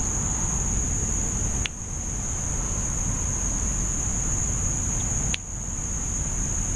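Steady chorus of insects in the marsh grass, one high even drone, over a constant low rumble. Two short sharp clicks break in, about two seconds and five seconds in.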